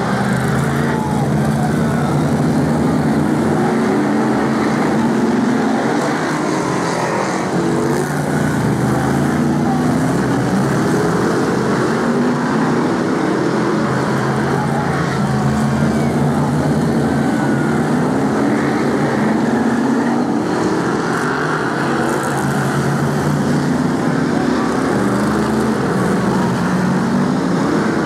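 Several BRISCA F1 stock cars racing past in a pack, their V8 engines running loud. The engine notes rise and fall over and over as the cars slow for the bend and accelerate away.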